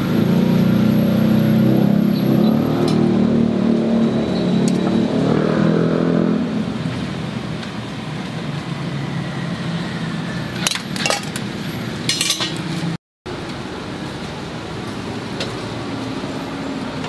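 A vehicle engine running close by for the first six or seven seconds, then fading into street noise. A little over ten seconds in come a few quick metallic clinks of tongs and fork against the metal egg-cake mold.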